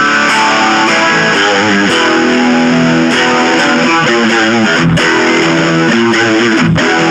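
High-gain distorted electric guitar played through a NUX Mighty Lite amp: a run of sustained notes, some bent and shaken with vibrato.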